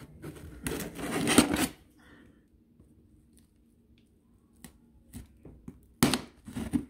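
Large knife slicing through packing tape and cardboard on a shipping box. There is a long scraping cut about a second in, a few light clicks, and another cut near the end.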